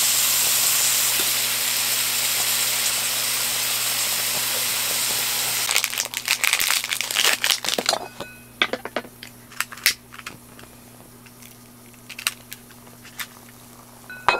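Beef sizzling in a small grill pan, a steady hiss. About six seconds in comes a clatter of metal as the pan is handled, and about eight seconds in the sizzling stops as the pan is lifted off the flame, leaving scattered light clicks and knocks of pan and tongs.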